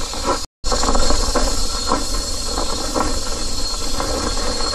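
Wind rushing over the microphone and a low rumble while riding a 125cc Yamaha Filano scooter down a rough, steep dirt track. The sound cuts out completely for a split second about half a second in.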